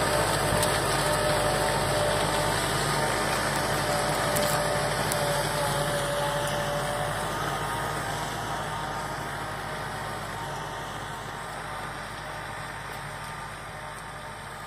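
Massey Ferguson 4275 tractor's four-cylinder diesel engine running steadily while pulling a three-disc reversible plow through the soil, without straining. The sound grows gradually fainter.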